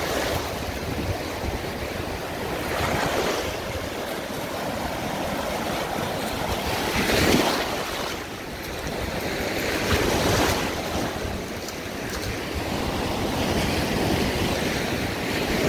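Gulf of Mexico surf washing up on a sandy beach, small waves breaking and swelling in every three to four seconds.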